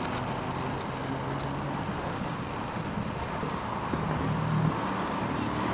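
Steady road traffic with cars and heavier vehicles going past and a low engine drone throughout. A few light clicks come in the first second and a half.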